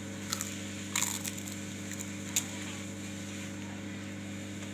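A child biting and chewing a crunchy snack: four or five short, crisp crunches in the first two and a half seconds. A steady low hum runs underneath.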